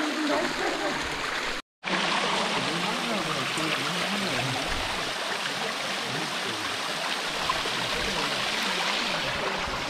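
Small canyon waterfall running thinly over mossy rocks into a rocky stream: a steady rush and trickle of water, at low flow with little water coming over. It drops out for an instant about a second and a half in.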